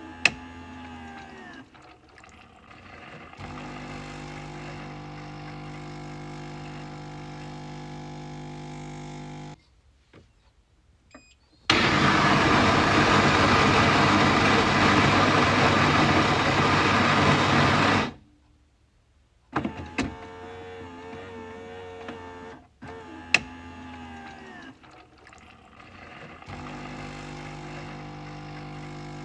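Coffee machine running through its cycle: a steady motor or pump hum, broken by two short silences, with a loud rushing noise lasting about six seconds in the middle and a couple of sharp clicks.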